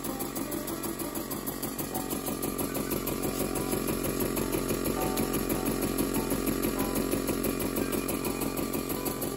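Märklin 4122 toy steam engine running, its flywheel turning a small electric machine through a cord belt: a steady mechanical whirr and rattle with a fast, regular pulse, swelling a little in the middle.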